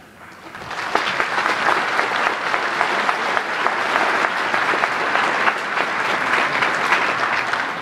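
Large audience applauding: dense clapping that swells up over the first second, holds steady, and tails off near the end.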